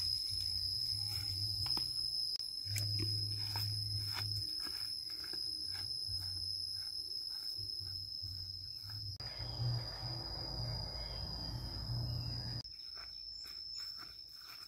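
Steady, high-pitched insect drone, with scattered light clicks and knocks.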